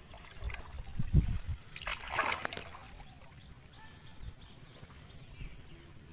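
Splashing in shallow water: a low thud about a second in, then a short burst of splashing.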